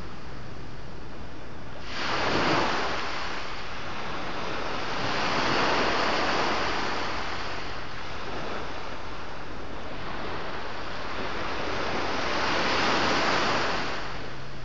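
Sea surf: waves wash in three times, each swelling and fading over a couple of seconds.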